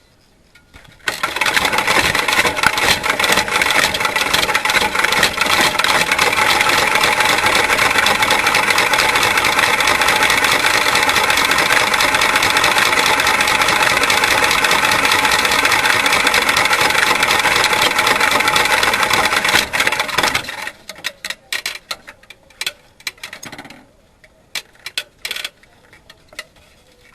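Quarter midget race car's single-cylinder engine running loudly at a steady pitch, starting about a second in and cutting off abruptly about twenty seconds in, followed by scattered clicks and knocks.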